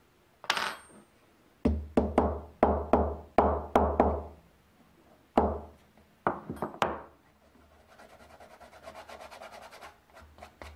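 Small wooden-handled hammer tapping an inlaid veneer piece down into the marquetry packet on cardboard: a run of about eight quick, even knocks, one more after a pause, then three in quick succession. Near the end, about two seconds of soft, fast rasping.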